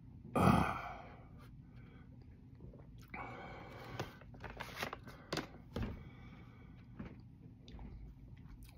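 A sharp, pained breath about half a second in, from someone burning from a very hot pepper. Then, from about three seconds in, the crinkling and clicking of a plastic pack of face and body wipes as a wipe is pulled out.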